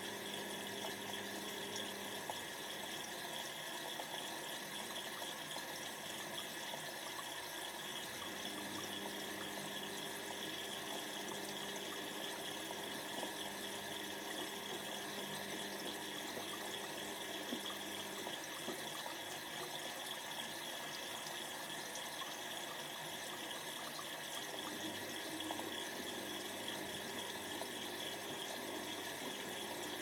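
Whirlpool AWO12963S front-loading washing machine in its wash phase: the drum tumbling a wet load, with water sloshing steadily. A low motor hum drops out twice and comes back.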